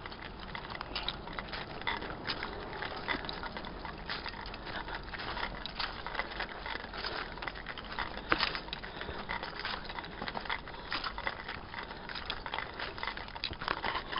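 Everyday-carry gear clattering and jangling with each step of a walk: a steady, irregular run of small metal clinks and rattles.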